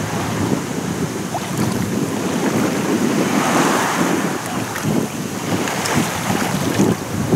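Wind buffeting the microphone over small waves lapping on a sandy shore, with a wave washing in and breaking about three to four seconds in.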